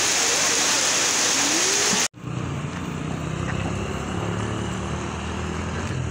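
Heavy rain hissing steadily, cut off suddenly about two seconds in. After the cut, a vehicle engine idles with a steady low hum.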